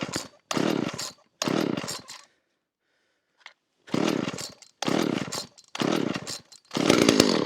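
Homelite Super 2 chainsaw's small two-stroke engine being pull-started on full choke, sputtering into short bursts that each die away, about a second apart, with a pause of about two seconds in the middle. Sputtering on full choke is the sign that the engine is ready for the choke to be eased down a notch.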